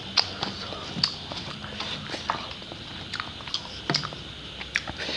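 Irregular small clicks and smacks picked up close on a clip-on microphone, from eating and from handling a plastic water bottle, with sips from the bottle near the end.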